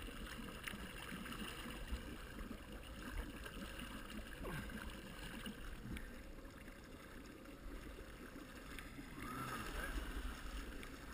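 Jet ski running slowly with a low engine rumble and water churning from the jet at the stern while it pulls an inflatable ring on a tow rope.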